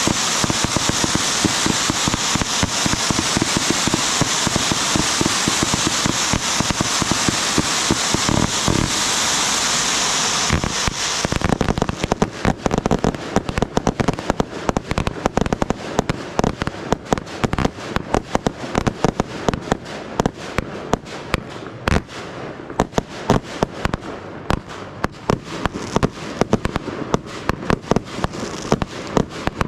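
Fireworks display: for about the first ten seconds a dense, continuous crackling hiss, then a rapid run of separate sharp pops and bangs, several a second.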